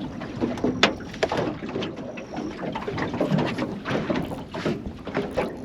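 Water slapping against the hull of a small fishing boat, with scattered knocks and clicks.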